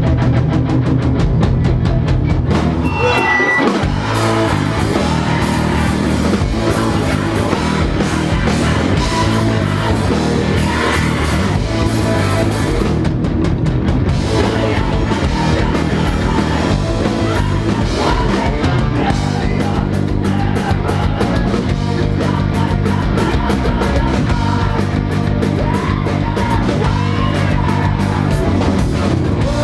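A rock band playing loud and live: electric guitar over a drum kit, dense and steady.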